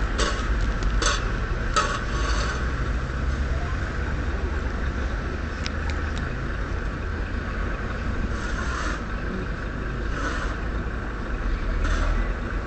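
A vehicle engine running with a steady low rumble, with rustling handling and wind noise on the microphone that swells briefly several times.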